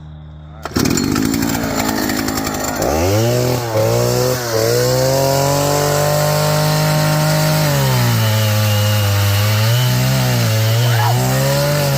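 Big-bore two-stroke chainsaw with a 42-inch bar starting up about a second in and running rough for a moment. It then revs up steeply to full throttle with a couple of brief dips. Near eight seconds the pitch drops and wavers lower as the chain works through wood under load.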